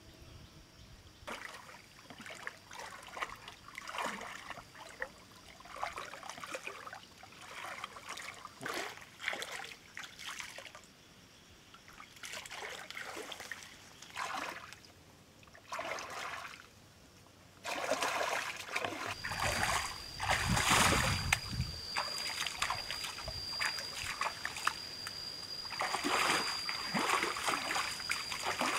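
Shallow muddy pond water splashing and trickling, in short separate splashes, as a person wades and sweeps their hands through it to catch fish by hand. The splashing grows louder in the last third, and a steady high-pitched whine joins in.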